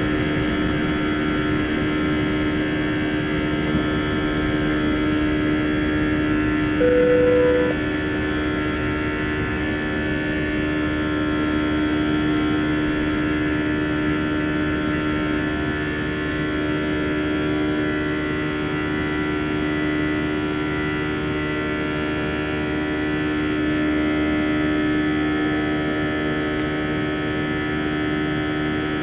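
CFM56-5A turbofan engines of an Airbus A320 heard from inside the cabin at climb power after takeoff: a steady buzz of many held tones over a steady rush. A short single tone sounds briefly about seven seconds in.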